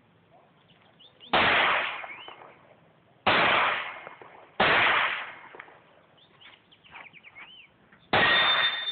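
Four pistol shots, irregularly spaced, each a sharp crack with a short ringing tail: about one second in, twice close together around three to five seconds, and once more near the end.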